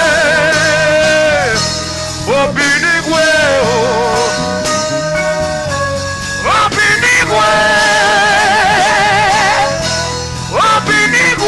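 Gospel worship music without words: a lead line of long held notes with heavy vibrato, each phrase sliding up into its note, over a steady bass and band backing.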